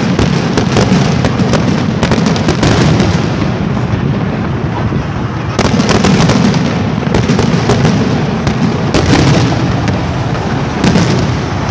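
Fireworks display going off continuously: a dense run of crackling and bangs, with the sharpest reports about halfway through and again near the end.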